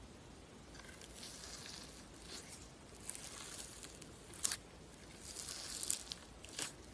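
Slime being squished and stretched by hand, giving soft, wet crackles and pops at irregular intervals, with the sharpest pop about four and a half seconds in.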